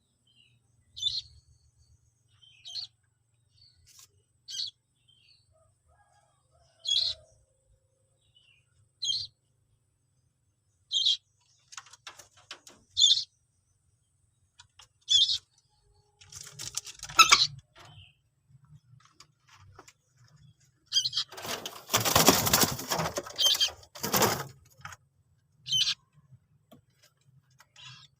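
Common moorhen chick giving a short, high-pitched peep about every two seconds. Near the end a louder rushing burst lasts about three seconds, over a faint low hum.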